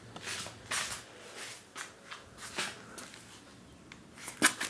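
Scattered rustling and shuffling handling noises, with a couple of sharp knocks near the end.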